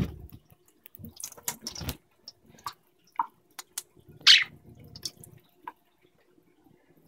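Thin stream of water from a kitchen faucet trickling onto wet hands over a stainless-steel sink, with scattered drips and splashes as a budgie bathes. A louder splash comes about four seconds in.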